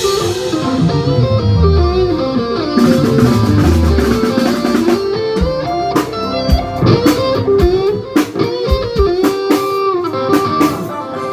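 Band playing without vocals: a plucked guitar melody over a bass line and drum kit, with the drum hits coming thicker in the second half.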